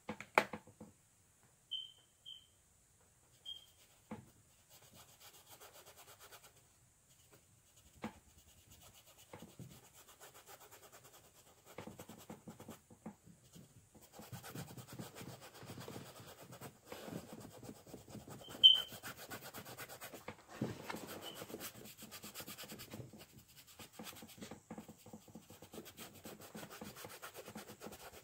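Paintbrush scrubbing acrylic paint onto a canvas: a dry rubbing, scratching sound in quick strokes, steady from about twelve seconds in, with only a few scattered knocks before that. A few short high chirps sound over it, the loudest about two-thirds of the way through.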